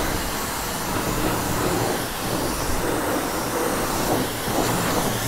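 Self-serve car wash pressure wand spraying a steady jet of water onto a motorcycle and the wet concrete floor, rinsing off soap foam.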